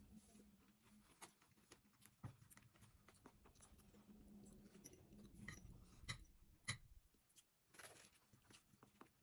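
Faint eating noises: scattered small clicks and taps of cutlery and chewing, with a sharper click about six and a half seconds in.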